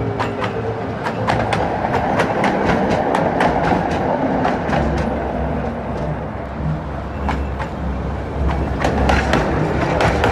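Tram wheels knocking over rail joints and crossings: a quick run of sharp knocks for the first several seconds, a few more spread out, then another run near the end, over a steady running rumble.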